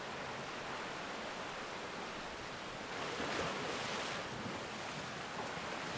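Ocean waves washing in: a steady hiss of surf that swells about halfway through.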